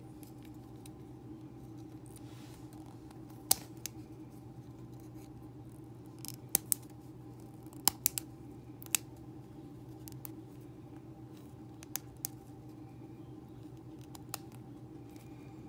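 About ten short, sharp clicks and taps of small plastic and metal parts of an HO slot car chassis being handled and fitted at the bench, over a steady low hum.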